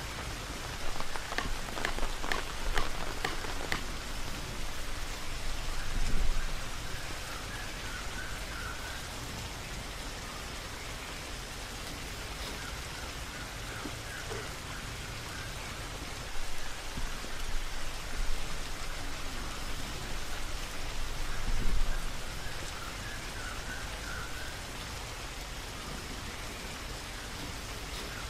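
Steady rain falling, with a few short clicks early on and two louder low rumbles.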